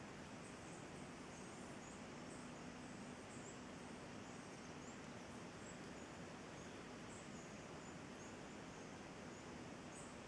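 Faint forest ambience: a steady low hum and hiss, with short high-pitched chirps repeating irregularly about once or twice a second.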